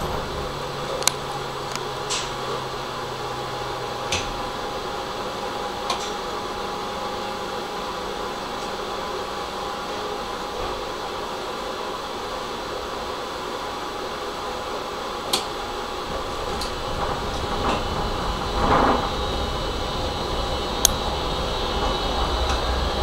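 Tram standing at a stop, heard from inside the car: its equipment hums steadily, with a few sharp clicks. In the last few seconds it pulls away and a low rumble of the running gear builds.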